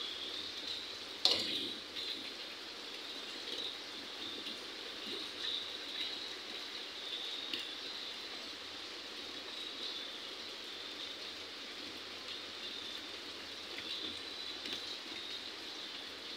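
Faint steady high-pitched chirping in the background, with one sharp knock about a second in and a few soft taps as live fish are dropped into a bowl and flop about.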